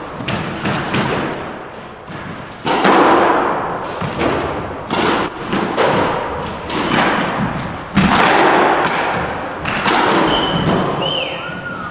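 A squash rally: the hard rubber ball cracking off racquets and the court walls about once a second, each hit ringing out in the court's echo. Short high sneaker squeaks on the wooden floor come in between the hits.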